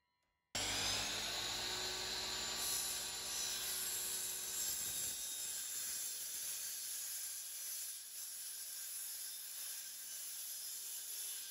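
DeWalt XPS miter saw starting suddenly about half a second in and its blade cutting through an aluminum bar: a loud, steady, hissing high-pitched screech over the motor's hum, the hum fading about halfway through while the screech goes on.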